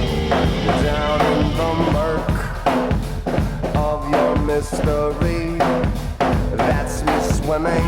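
Instrumental stretch of an alternative rock song: a drum kit beat with bass drum, snare and rimshots under a bass line and a melodic instrument, with no singing.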